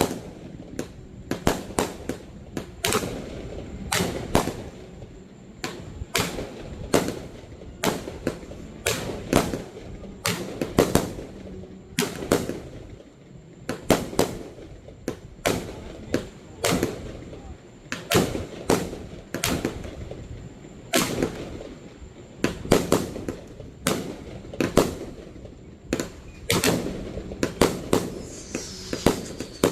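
Fireworks display: aerial shell bursts going off in a steady stream, sharp bangs about one to two a second, some in quick clusters, each trailing a short rumble. A falling whistle comes near the end.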